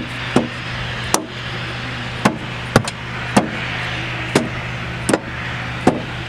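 Mallet blows on roller coaster car hardware: about eight sharp, separate knocks, spaced unevenly around a second apart, over a steady low hum.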